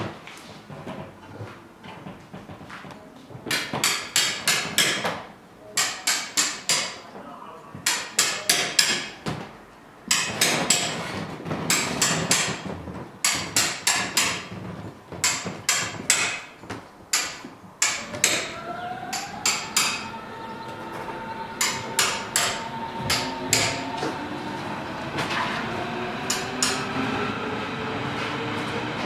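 Hand tool strikes on a block of natural stone, metal on stone, coming in quick runs of several blows with short pauses. From about two-thirds of the way in, a Berlin S-Bahn electric train takes over: a rising whine of its traction motors over steady rolling noise.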